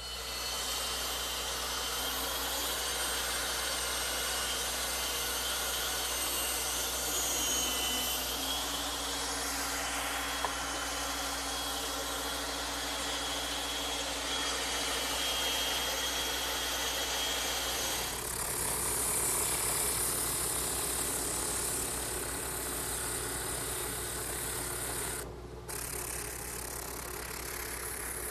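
Bandsaw running and cutting along a traced outline in thick wood stock, a steady whine over the noise of the blade in the wood. About two-thirds of the way through the sound changes to a brighter, hissier grinding, and it drops out briefly twice near the end.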